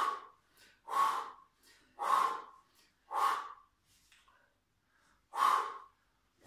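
A man's forceful breaths out, one with each swing of a side-to-side lunge and arm-swing exercise. There are five short puffs, about one a second, with a pause about four seconds in.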